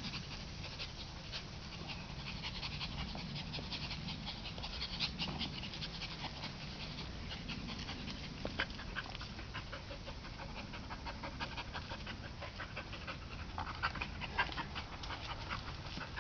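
Blue heeler dog panting as it tugs a boy around on a tire swing, with many short scratchy clicks mixed in.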